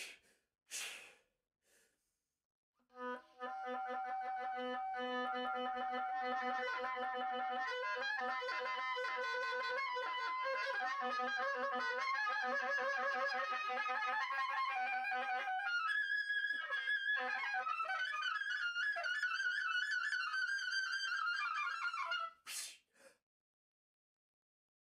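Oboe playing a contemporary solo piece: a short hiss of breath, then a long stretch of sustained, wavering notes that move higher after about 16 seconds, ending with another sharp breath sound. The breathing and air noises are written into the score.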